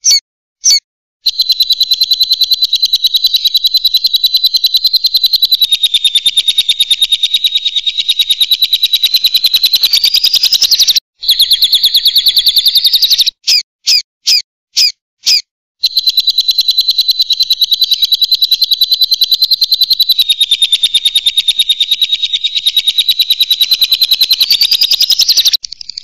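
Lovebird's long 'ngekek' chatter: very fast runs of sharp, high chirps held for about ten seconds at a time, broken by a few short bursts near the start and again in the middle.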